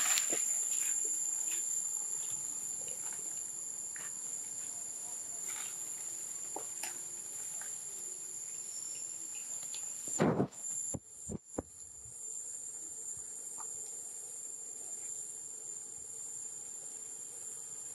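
Steady high-pitched drone of insects in the trees. About ten seconds in there is a brief loud noise, followed by a few sharp clicks.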